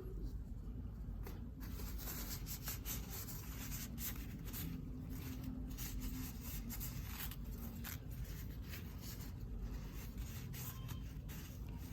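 Parcel packaging being handled and opened by hand: irregular rustling, rubbing and scraping strokes.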